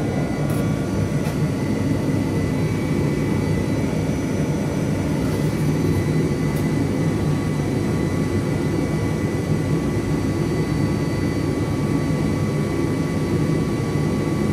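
Handheld pulsed laser cleaning machine running steadily: a constant rushing noise with a few faint, steady high tones over it.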